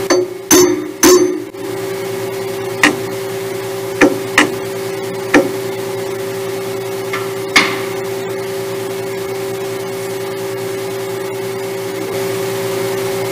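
Sharp metal-on-metal clanks with a brief ring: three loud ones in the first second and a half, then five lighter clinks spread over the next six seconds, as a steel jig and tools are handled at a CNC lathe. Under them, the lathe's steady hum.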